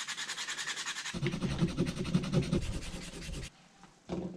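Scrunched aluminium foil wet with Coke scrubbed fast back and forth on a chrome metal lure, a rapid scratchy rubbing of several strokes a second that gets heavier after about a second and stops about three and a half seconds in. The foil is lifting salt and corrosion off the old chrome. A brief knock follows near the end.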